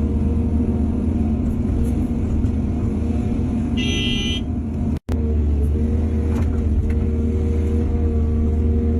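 Engine of heavy earthmoving machinery running steadily, with a low drone. A brief high-pitched tone sounds for about half a second around four seconds in, and the sound cuts out for an instant just after five seconds.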